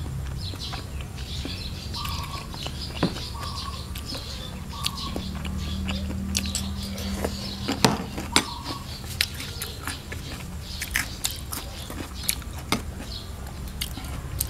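Close-up eating sounds: chewing with many small wet mouth clicks, and a few louder clicks of a metal spoon against the dish about eight seconds in. Birds chirp in the background.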